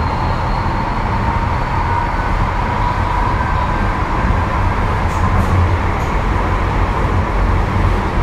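Kyoto Municipal Subway Tozai Line 50 series train (Mitsubishi GTO VVVF inverter) running through the tunnel, heard from inside the car: a steady low rumble of wheels and track with a faint steady whine above it.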